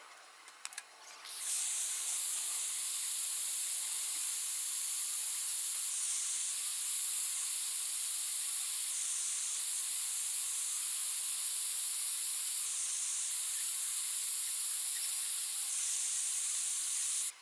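Jeweller's gas soldering torch flame hissing steadily while heating the ring halves to flow solder along the join. It starts about a second in and cuts off suddenly near the end.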